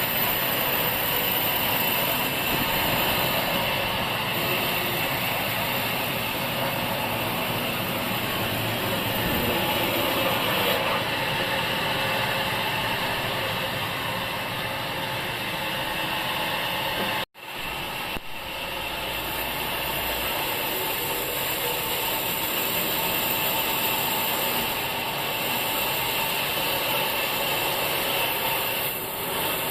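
Sawmill machinery running steadily with a continuous mechanical noise. It cuts out suddenly for a moment a little past halfway, then resumes.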